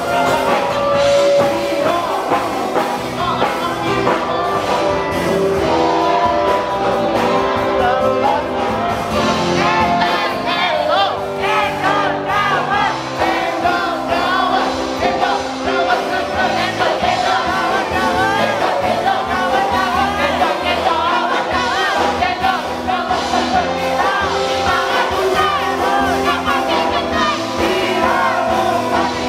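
A singer's voice amplified through a handheld microphone over backing music, with held notes that waver in pitch from about ten seconds in.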